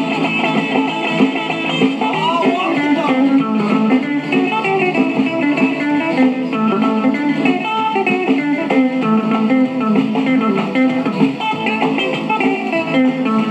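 Electric guitar solo from a 1950s rockabilly 45 rpm record, played through a 1956 RCA 7-EP-45 portable record player's small built-in speaker, with almost no bass.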